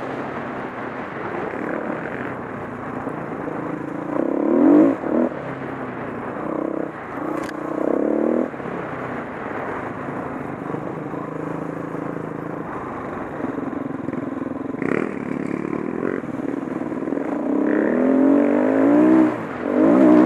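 Off-road motorcycle's single-cylinder four-stroke engine running under way along a dirt trail, the revs rising and falling as the throttle is worked, with the strongest surges about four seconds in and near the end. A couple of sharp knocks from the bike over the rough ground.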